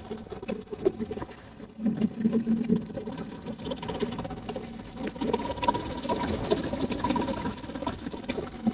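A boat's motor running steadily.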